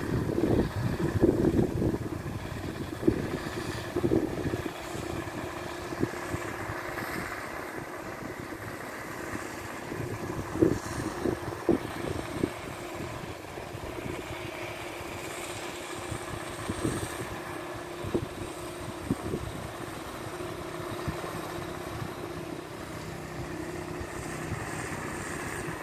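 Pond paddlewheel aerator motor running with a steady hum. Wind gusts on the microphone, strongest in the first few seconds and again briefly midway.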